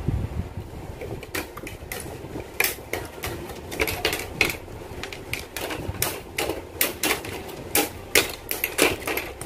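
Hobby side nippers clipping plastic model-kit parts off their runners: a quick, irregular series of sharp plastic clicks and snaps, starting about a second in.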